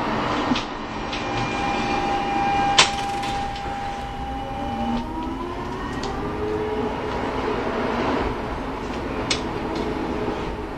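City tram running on its rails, with a steady tone through the first half, a sharp click about three seconds in, and a rising whine from a little past the middle.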